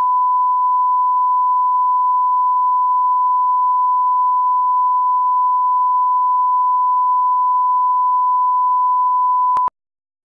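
Broadcast line-up tone: a steady 1 kHz reference sine tone that goes with colour bars at the head of a tape, used for setting audio levels. It cuts off with a click near the end.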